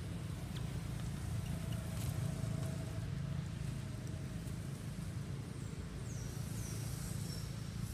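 Steady low background rumble, with a few faint high falling chirps near the end.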